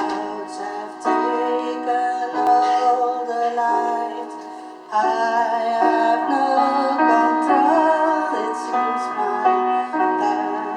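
Music: a female voice singing over piano or keyboard accompaniment, growing fuller about five seconds in.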